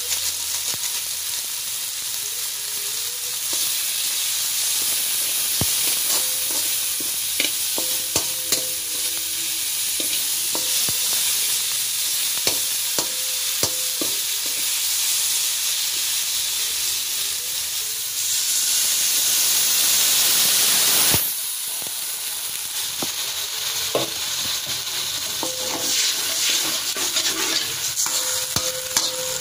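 Onion, tomato and chilli-powder masala sizzling in oil in an aluminium kadai, with a slotted spatula stirring it and clicking and scraping against the pan. The sizzle swells louder for a few seconds about two-thirds of the way through, stops abruptly, then carries on a little softer.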